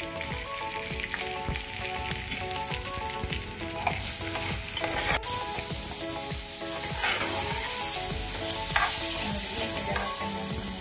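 Raw rice grains being stirred with a metal spoon in an aluminium pot with a little hot oil, sizzling and scraping as the rice starts to fry. The sizzle gets louder about four seconds in.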